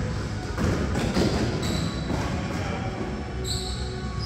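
Basketball game sounds on a gym floor: a ball bouncing and sneakers squeaking briefly on the hardwood, a few short squeaks.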